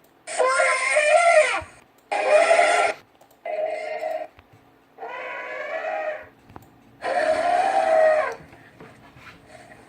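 Elephant trumpeting: five separate calls in a row, each about a second long with short gaps between.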